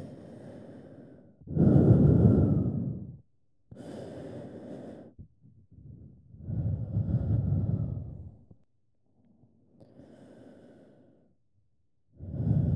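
A person breathing slowly and heavily close to the microphone. Long breaths come every couple of seconds, alternating loud and soft.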